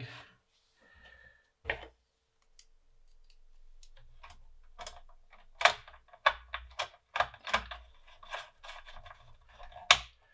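Irregular clicks and knocks from the metal case and parts of a floppy drive unit being handled and fitted back together. One sharp click comes near the start, then a dense run of clicks from about halfway, with the loudest near the end.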